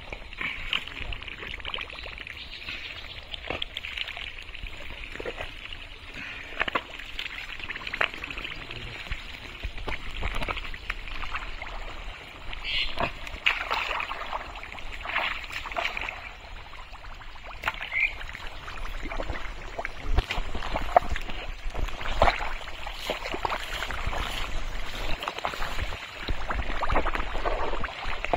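Wet splashing and squelching as a person wades and digs with his hands through deep pond mud and shallow water, an irregular run of slaps and sloshes.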